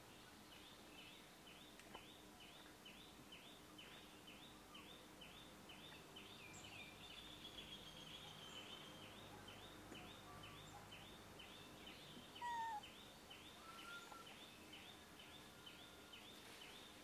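Faint outdoor ambience of insects chirping, a high chirp repeating about twice a second, with a short louder call about twelve seconds in.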